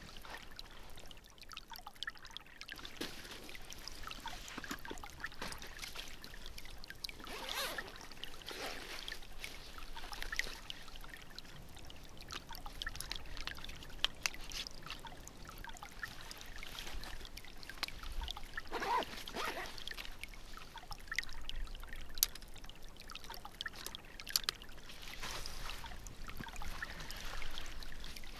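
Small woodland creek trickling, with scattered clicks and a few louder rustles from a camera bag and camera being handled.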